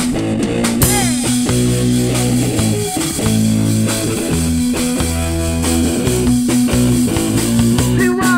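Live rock band playing an instrumental passage: electric guitar and bass guitar over a drum kit keeping a steady beat.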